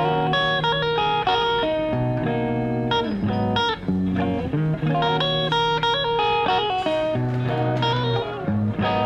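Intro music led by an electric guitar playing a melody of clear notes over a steady bass line.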